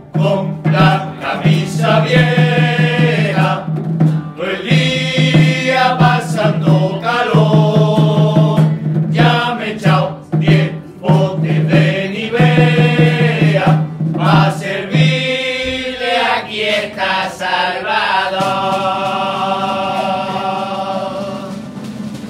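A chirigota, a Cádiz-carnival comic choir of men, singing a song together in phrases over a steady low note; near the end they hold one long chord.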